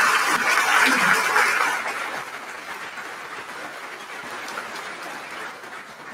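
Audience applause in a large hall, dying away over the first two seconds and leaving a softer, steady patter of clapping and room noise.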